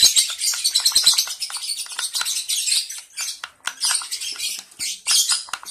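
Month-old lovebird chicks chirping continuously in rapid, high-pitched calls, with a couple of brief pauses.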